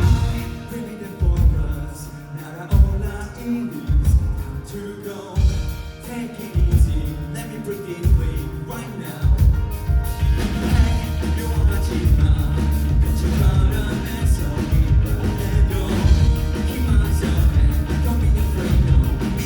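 Rock band playing a pop-rock song: for the first nine seconds or so, loud stop-start hits with short gaps between them, then the full band comes in and plays steadily.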